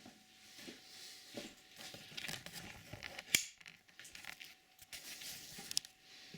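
Hands fitting a heavy rip fence onto a homemade woodworking machine: scattered light knocks, scrapes and rustling, with one sharp click about three seconds in.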